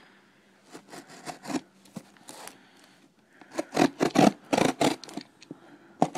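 Box cutter blade scraping and slicing along the taped seam of a cardboard box in a series of short strokes, faint at first and louder from about three and a half seconds in.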